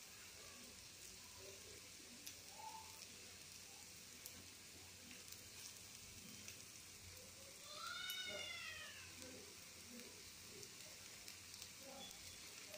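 Faint, steady sizzling of batter frying in oil in a paniyaram pan, with small scattered pops. About eight seconds in, a single brief pitched call rises and then falls over the sizzle.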